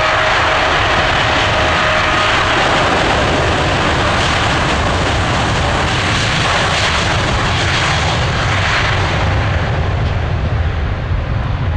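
Boeing 777-9's twin GE9X turbofans running at takeoff thrust as the airliner accelerates down the runway and lifts off: a loud, steady rushing jet noise with a deep rumble underneath, easing slightly near the end.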